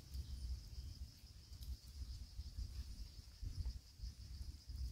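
Insects droning steadily at a high pitch, over a low, uneven rumble, with a few faint clicks.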